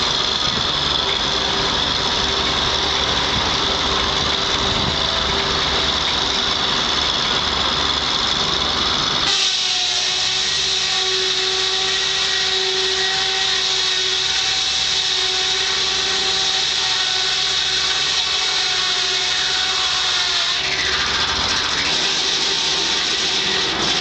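Old belt-driven circular sawmill running off a Case 730 tractor's belt pulley, a steady mechanical din with a high whine throughout. About nine seconds in the low rumble drops out suddenly, leaving steady humming tones, and it comes back about twenty-one seconds in.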